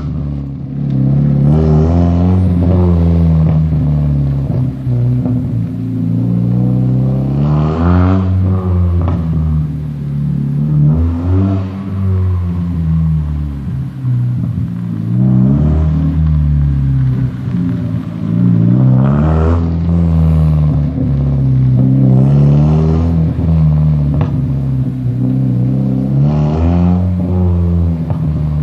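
1996 Mazda Miata's four-cylinder engine through a decatted, hand-made stainless cat-back exhaust with a racing muffler, revving up and dropping back again and again, with sharp pops at several of the peaks.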